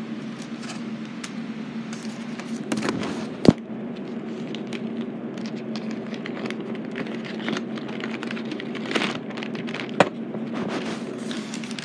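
Handling noise: rustling and scattered light clicks over a steady low hum, with a sharp click about three and a half seconds in and another near ten seconds.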